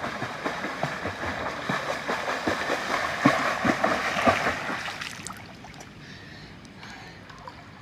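A swimmer's kicks and arm strokes splashing in a swimming pool: a quick, uneven run of splashes close by that dies down about five seconds in to gentle lapping.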